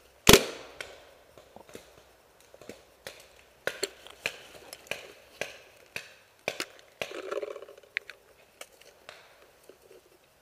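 One sharp, loud crack about a third of a second in, followed by irregular snaps, clicks and rustling of movement in dry leaves and brush.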